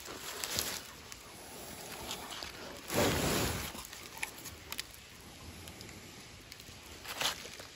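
A dog sniffing and nosing at a hollow, rotting log held in someone's hands, with light rustling from the log being handled. The loudest part is a short scuffling burst about three seconds in.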